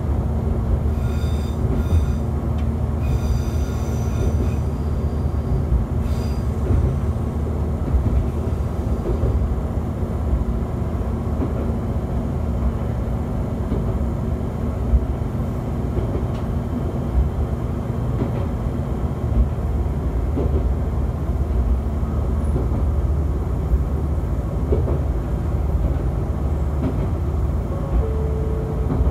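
AN-8800 series diesel railcar running along the line, heard from inside the cab: a steady low rumble of engine and wheels on the rails. Twice in the first few seconds, on a curve, short high wheel squeals ring out over the rumble.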